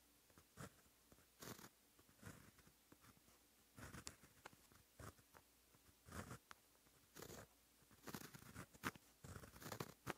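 Fine-tipped pen writing in white ink on black paper: faint, scratchy pen strokes in short, irregular bursts as each character is formed, with brief pauses between strokes.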